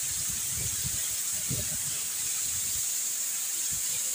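Steady rushing hiss of water jetting out of a dam outlet and splashing down, with some low rumbling in the first couple of seconds.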